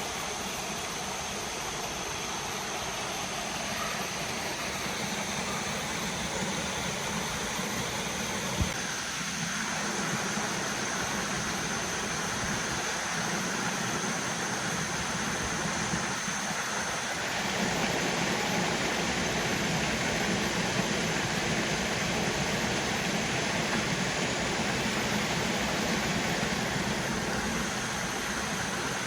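Steady rush of a waterfall and its stream, growing louder about two-thirds of the way through, with one sharp click about nine seconds in.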